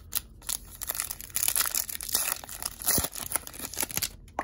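Baseball card pack wrapper being torn open and crinkled: a dense run of crinkling and tearing with sharp clicks, busiest from about a second in until near the end.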